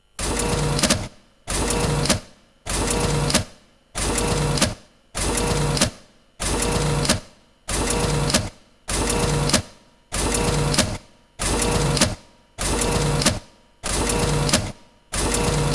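Office photocopier running, feeding and passing sheets through in a steady cycle of about one copy every 1.2 seconds, each pass a whirring, clattering run that stops short before the next.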